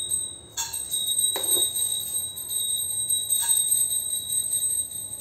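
Coriander seeds poured from a steel spoon into an empty nonstick kadai, a brief rattle of seeds landing about half a second in, with a couple of faint knocks later. A steady high-pitched whine runs under it almost to the end.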